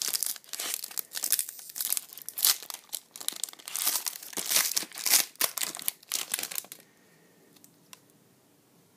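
Trading-card pack wrapper being torn open and crinkled by hand, a dense crackling that runs for about seven seconds and then stops, leaving only a few faint ticks.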